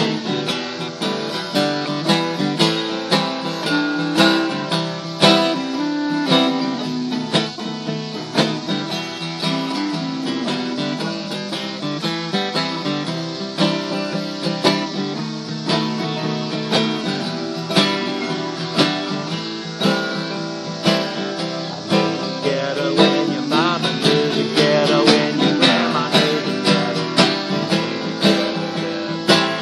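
Twelve-string acoustic guitar strummed in a steady rhythm, with a clarinet playing a melody over it; the clarinet's held notes waver in the latter part.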